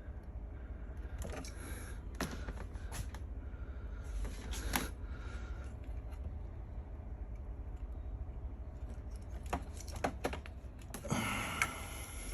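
Scattered small clicks and scrapes of hands working on an ignition control module's plug connector and pins, in clusters a few seconds apart, over a steady low hum.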